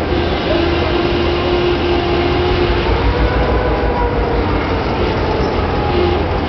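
Passenger train coaches rolling slowly through a station: a steady rumble with a faint drawn-out tone over it.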